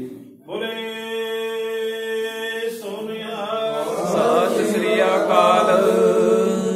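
Sikh jaikara after the ardas: one man's long drawn-out call, then many men's voices answering together, louder and ragged, in a chanted response.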